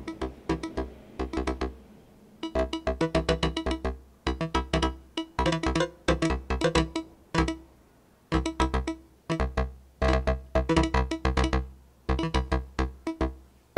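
Make Noise Eurorack modular synthesizer patch playing quick runs of short pitched synth notes in phrases about a second and a half long. Each note is a PoliMATHS channel picked at random by MultiMod's stepped-random read, within the range set by the attenuation.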